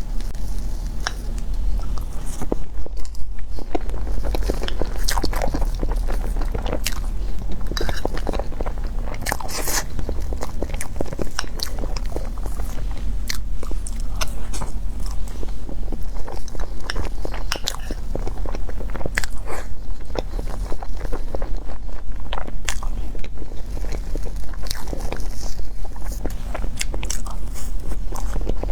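Close-miked eating: a person biting and chewing a mocha mille crêpe cake, with many short wet smacks and mouth clicks throughout. A steady low hum runs underneath.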